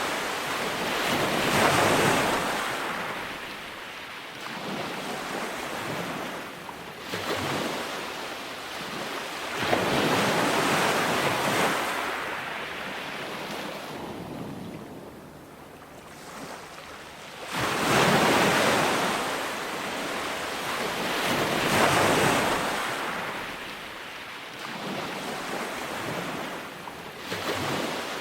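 Ocean waves breaking on a beach: each wave comes in as a rushing surge that swells and then fades away over a few seconds, one after another.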